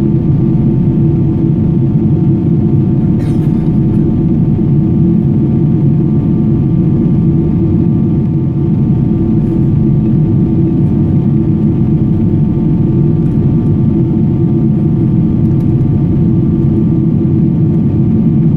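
Boeing 777-200ER engine noise heard inside the passenger cabin: a loud, steady, deep rumble with a few steady whining tones above it. There is a faint click about three seconds in.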